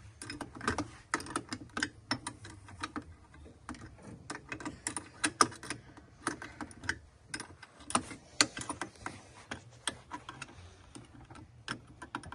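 Irregular metallic clicks and taps of hand tools working the nuts on the battery cables and kill switch, some coming in quick runs like a ratchet wrench.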